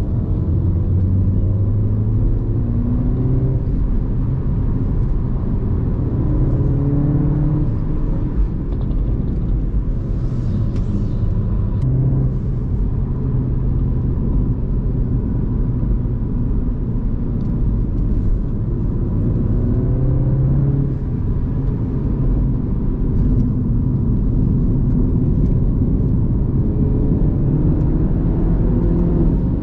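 Mini Cooper S F56's turbocharged four-cylinder engine through its stock exhaust, driving on the road. The engine note climbs and drops back again and again as the car accelerates and eases off, over a steady low rumble.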